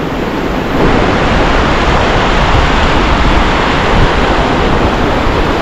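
Ocean surf washing in and running over the sand, a steady rushing wash that swells about a second in, with wind rumbling on the microphone.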